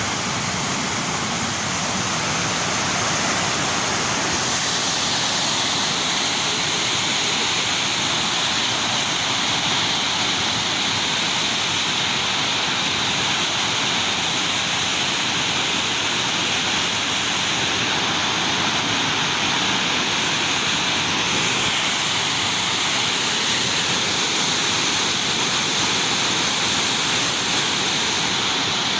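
Waterfall: a steady rush of falling water, its hiss growing a little brighter about five seconds in.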